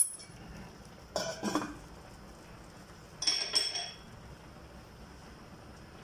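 Stainless-steel cookware clattering: a sharp tap of a metal ladle at the start, a short rattle just over a second in, then two ringing clinks as a metal lid is set onto the pot about three seconds in.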